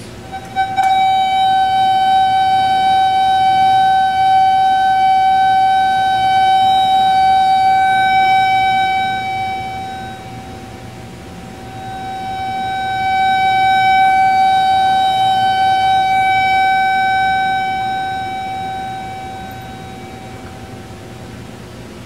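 A speaker playing a microwave receiver's detected signal as a steady, buzzy tone with many overtones, starting less than a second in. It fades almost away around the middle and swells back, then fades again near the end as the receiver is slid through the interference pattern of the two-horn microwave emitter: loud at constructive interference, faint at destructive interference.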